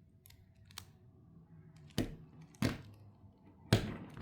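Plastic clicks and clacks of a 10x10 puzzle cube's layers being turned by hand: a couple of faint clicks, then three sharper, louder clacks in the second half.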